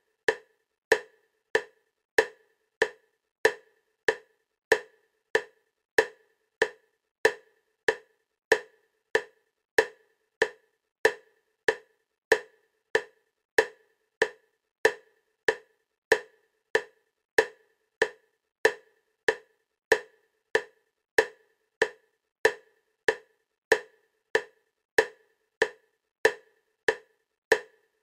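Bilateral stimulation clicks for EMDR: a short, sharp click repeating at an even 96 beats a minute, about one every 0.6 seconds, alternating side to side.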